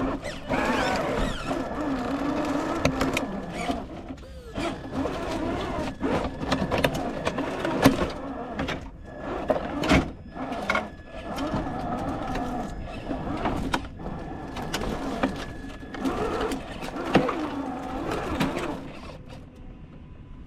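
Traxxas TRX-4 RC crawler's electric motor and gearbox whining, rising and falling in pitch with the throttle as it drives over rough ground, with a few sharp knocks from the truck hitting obstacles. The sound drops away near the end.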